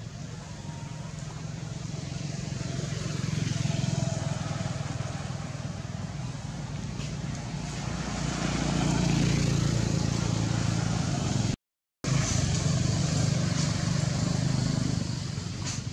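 Engine noise of passing road traffic: a low motor hum that swells and fades as vehicles go by, loudest about four seconds in and again from about eight to eleven seconds. The sound cuts out completely for a moment about twelve seconds in.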